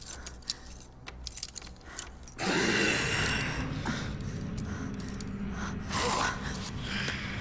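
Faint metal clicks of a small pin working at handcuffs, then, about two and a half seconds in, a person starts gasping and groaning loudly.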